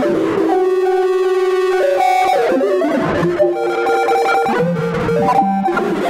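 Electric guitar improvisation run through a computer-controlled harmonizer that adds its own counterpoint line, giving a synthesizer-like sound. Held notes shift in pitch every second or so, with a wavering held note about half a second in.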